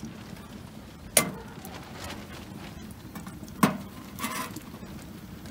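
Two sharp metallic clinks from a lightweight aluminium camping pot and its wire handles, about a second in and again about three and a half seconds in, each ringing briefly. Faint crackling from the stove fire beneath the pot runs underneath.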